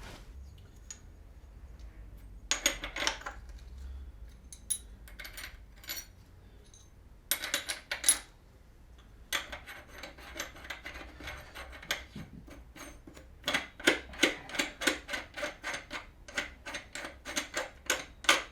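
Metal clinks and clatter of washers and the wheel nut being fitted back onto a motorcycle's rear wheel hub, ending in a run of evenly spaced clicks, about four a second, over the last few seconds.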